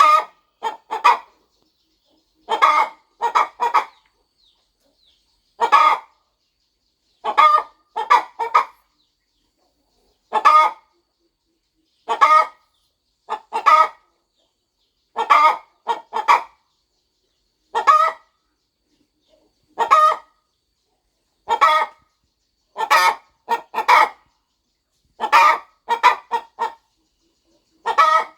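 Hen clucking in short clusters of two or three clucks, repeating about every two seconds with silence between.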